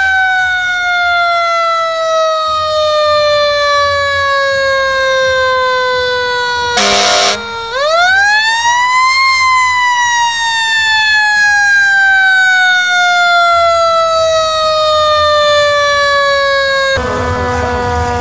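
Fire engine's mechanical siren coasting slowly down in pitch. Then a short horn blast, after which the siren is wound quickly back up and left to wind down slowly again.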